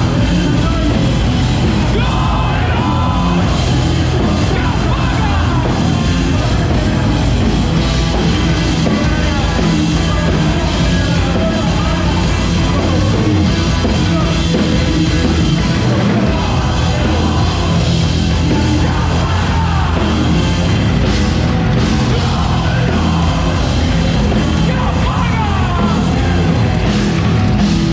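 Rock band playing a loud, dense song, with yelled vocals at times.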